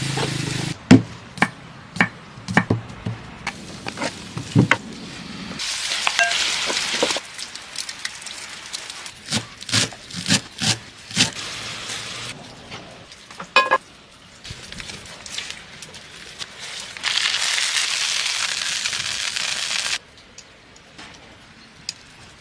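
Cooking sounds: food sizzling in hot oil in two stretches of a few seconds, one about six seconds in and a longer one near the end, between many sharp separate knocks and clicks of cooking work.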